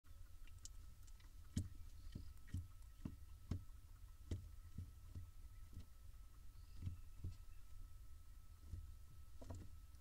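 Irregular soft clicks and knocks inside a wooden barn owl nest box over a low rumble and a faint steady high whine.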